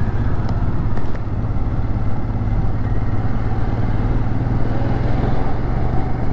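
Motorcycle engine running steadily while riding, a low even hum under a rush of road and wind noise.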